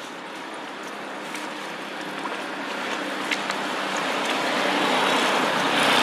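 A passing road vehicle: a steady rushing noise that grows steadily louder as it approaches, with a faint click about three seconds in.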